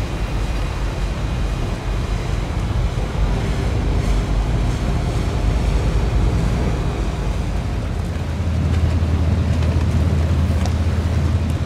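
Engines of passing motor yachts running with a low rumble, under wind noise on the microphone and the wash of water. About two-thirds of the way through, a deeper, steadier engine drone takes over as a closer boat passes.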